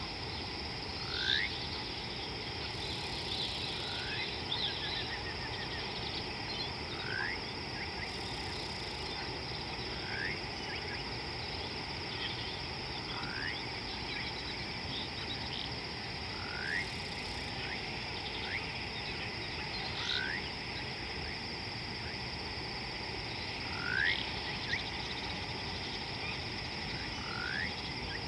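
Outdoor night-style animal chorus: a steady high-pitched insect drone, with a small animal's short rising chirp repeated about every two to three seconds, about a dozen times.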